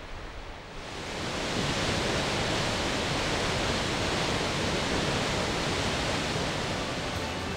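Water rushing out under the open spillway gates of a hydroelectric dam and churning below them: a steady rush of falling, turbulent water that swells up over the first second or so and then holds level.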